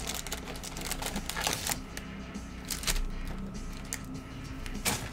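2022 Panini Select football trading cards and pack wrappers being handled: irregular clicks and rustles of card stock, with a few louder snaps.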